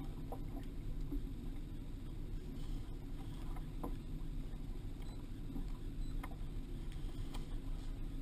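Steady low rumble of a small fishing boat trolling on open water, with a few light knocks and clicks from gear handled on deck.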